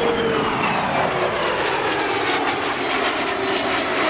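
Kawasaki C-1 twin-turbofan transport flying past, engine noise loud and steady, its whine falling slowly in pitch as it passes.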